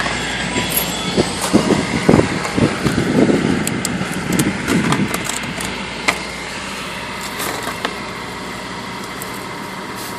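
Outdoor street sound: a motor vehicle running or passing over a steady low traffic hum, with a few sharp clicks and knocks in the second half.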